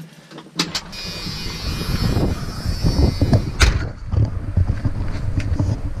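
Camera handling noise as it is carried from the pickup's cab to beneath the truck: two sharp clicks just over half a second in, a high steady hiss for the next few seconds, a sharp knock at about three and a half seconds, and loud rumbling handling and wind noise on the microphone. The air horns are not sounding.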